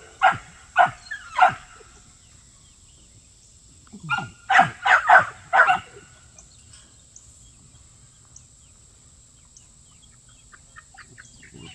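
A dog barking: three barks, a pause of about two seconds, then a quick run of about six barks. Faint short chirps come near the end.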